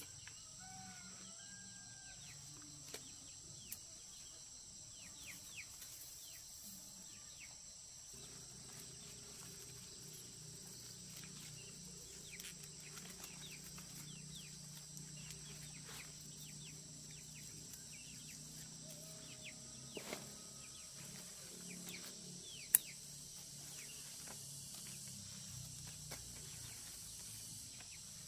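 Chickens clucking, with many short chirps over a steady high insect drone. A single sharp click about three-quarters of the way through.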